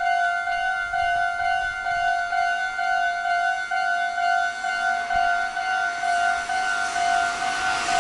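Japanese railway level-crossing electronic warning bell ringing steadily, about two strikes a second. Near the end the noise of an approaching train begins to rise under it.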